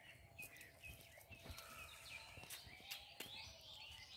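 Faint chirping of small birds, with a few sharp clicks scattered through.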